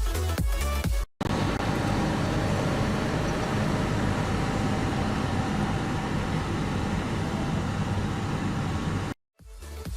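Steady noise of a motor vehicle running, with no beat or rhythm, lasting about eight seconds. Electronic dance music plays briefly at the start and returns near the end, each time after a short dropout to silence.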